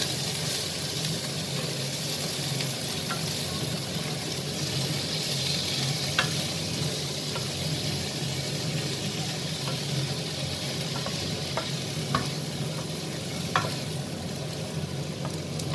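Chopped turkey, onion and peppers sizzling in hot oil in a frying pan as they are stirred with a wooden spoon, with a few sharp clicks along the way.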